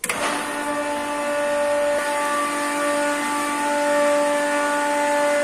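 Swimming-pool filter pump's electric motor switched on. It starts at once and runs with a steady pitched hum, pushing water through the sand filter on backwash.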